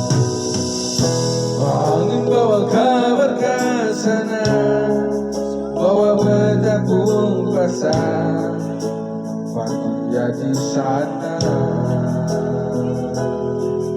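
Music: a song with a wavering sung melody over guitar and keyboard accompaniment, the melody phrases coming and going every few seconds.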